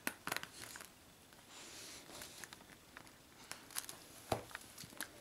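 Tibetan terrier chewing and pawing at a plush toy: faint, scattered rustles and clicks, with one louder knock a little after four seconds in.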